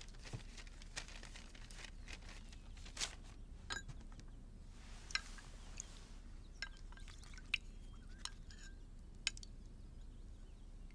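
Spoon clinking and tapping against a small bowl as medicine is spooned up and sipped: faint, scattered light clicks, with a brief soft hiss about five seconds in.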